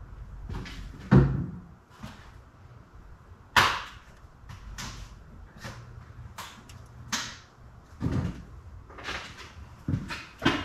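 Irregular knocks, clunks and thumps of things being handled and set down, about a dozen in all, the loudest a heavy thump about a second in.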